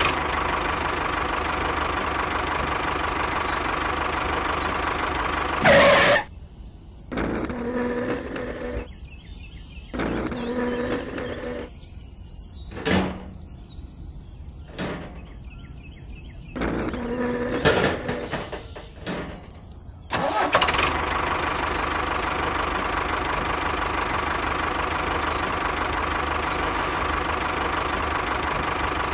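Tractor engine idling steadily. It cuts out about six seconds in after a short loud burst, leaving scattered clicks and short mechanical sounds, and starts running again about twenty seconds in.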